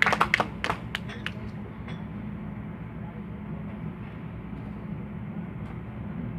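Audience applause tailing off in the first second or so, a few last claps, then a steady low hum of background room noise.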